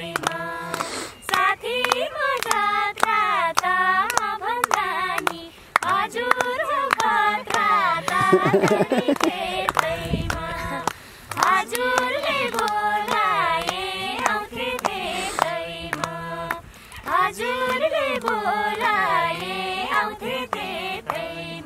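Women singing a Nepali dohori folk song as a group, with hands clapping a steady beat to keep time.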